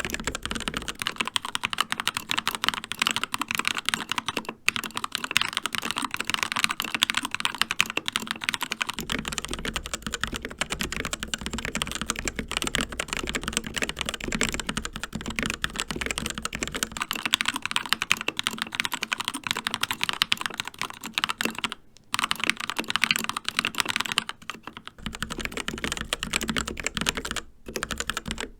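Continuous fast typing on mechanical keyboards with linear red switches. The sound changes about every eight seconds between a Keychron K2 with Gateron Reds and a CZC Reaper with TTC Reds, with a low hum under the Reaper's stretches. There are short pauses in the key clatter a few times.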